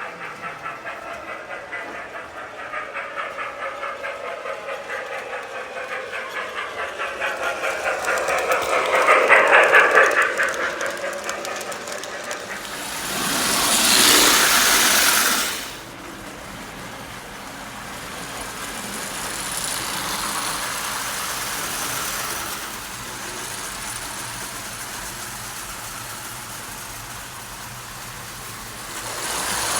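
Marx toy electric trains running on tinplate track: a fast clatter of wheels and motor that swells as a train comes close, peaks about a third of the way in, then a louder hissing passage a few seconds later before settling to a lower steady running sound.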